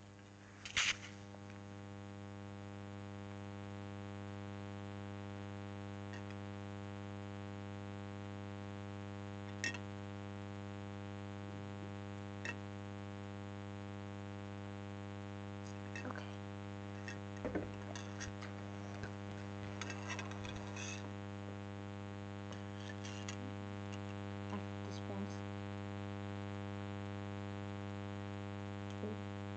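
Steady electrical mains hum with a stack of overtones, with a few faint clicks and light taps scattered through it, a sharper click about a second in.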